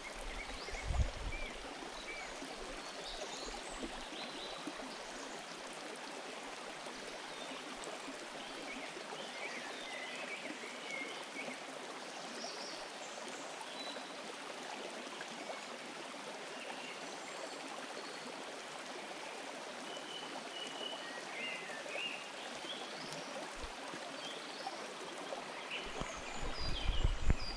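Shallow forest stream running steadily over stones, a continuous babble of water, with scattered short high bird chirps. There is a low rumble for the first second or so and again near the end.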